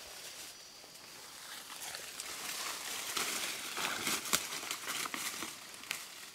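Rustling and crackling, with scattered sharp snaps, growing louder about two seconds in and easing off near the end.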